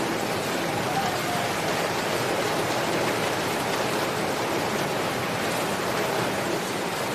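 Steady rain, an even hiss with no music over it except one faint harp note about a second in.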